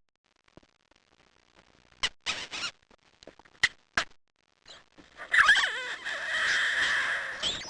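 Human vocal sound effects: a few short clicks and squeaks, then from about five seconds in a longer, louder, raspy squeal whose pitch wavers, ending near the end.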